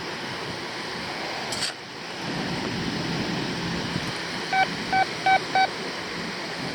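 Metal detector signalling a target: four short, even beeps at about three a second in the last two seconds, over a steady hiss of wind and surf.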